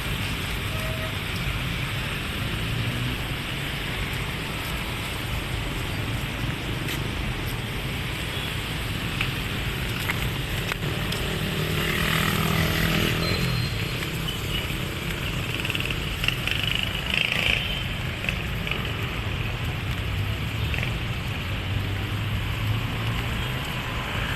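Street traffic: a steady wash of passing vehicles, with one engine, likely a motorcycle, going by close about halfway through.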